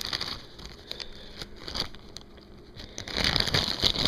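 Plastic packaging crinkling and crackling as it is handled, with scattered clicks, becoming a dense, louder rustle about three seconds in.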